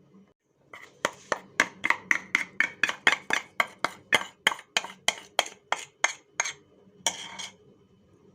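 A kitchen utensil knocking rhythmically on a hard surface, about twenty quick strokes at three to four a second, followed near the end by a brief scraping rustle.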